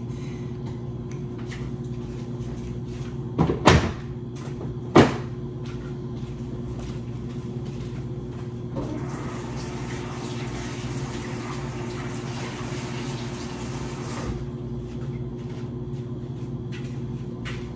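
Off-camera household sounds over a steady low hum: two sharp clacks, like a cupboard or door, a few seconds in, then a tap running for about five seconds.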